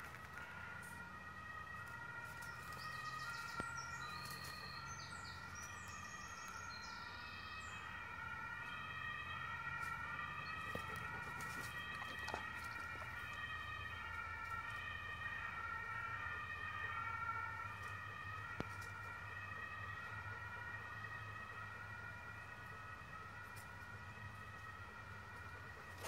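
A distant two-tone siren wailing steadily, its pitch stepping back and forth about every half second.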